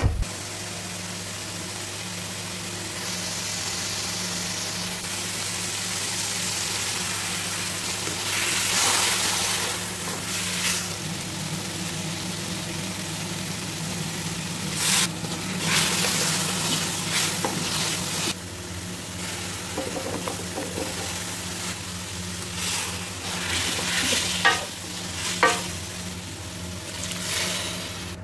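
Chicken, potato and carrot pieces sizzling in oil in a metal wok while being stirred with a spatula. The spatula scrapes and knocks against the pan now and then, over a steady low hum.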